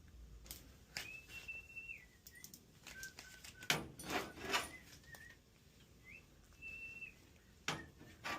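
Rubbing and scraping bursts from a pipe-doped probe being worked into its fitting. Between them come several short, thin, whistle-like tones, each held steady and stepping between a higher and a lower pitch.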